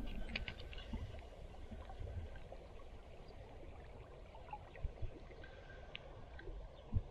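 Faint steady rush of a small river, with a few short low thumps: two about five seconds in and one near the end.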